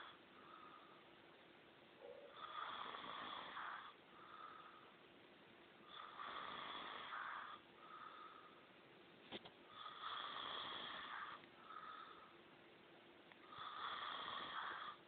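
A sleeping man snoring: four long snores, about one every four seconds, each followed by a shorter, softer breath sound. There is a single sharp click about nine seconds in.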